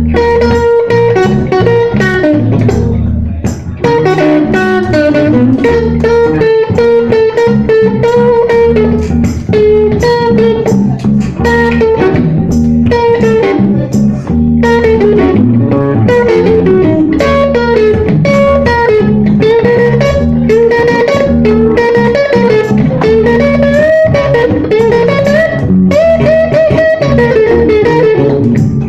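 Live blues band playing an instrumental passage: a lead electric guitar bends and slides its notes over a steady bass line.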